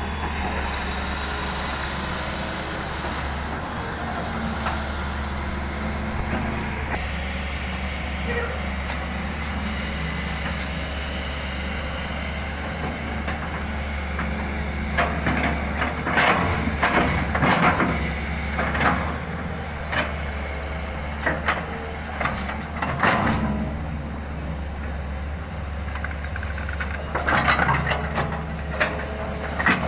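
Hydraulic excavator's diesel engine running steadily, with bursts of clanking and scraping from the machine's bucket and arm at work in the middle and again near the end.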